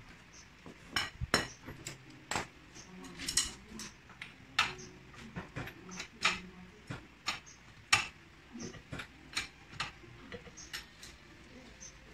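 Steel bar clinking and knocking against metal at a car's front wheel: a string of irregular sharp metallic clinks, loudest about eight seconds in.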